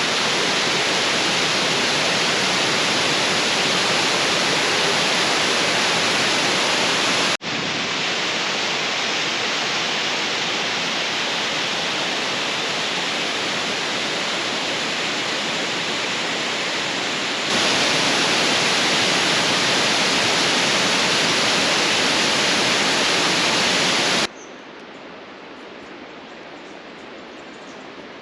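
Waterfall: a steady, loud rush of falling water with abrupt jumps in level between takes. It drops suddenly to a much softer rush of water a few seconds before the end.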